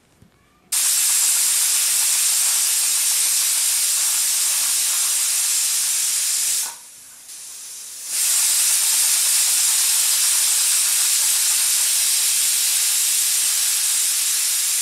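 Stovetop pressure cooker whistling: two long, loud hissing blasts of steam escaping under the whistle weight, each about six seconds, with a short break between them. These are the whistles counted to time the cooking.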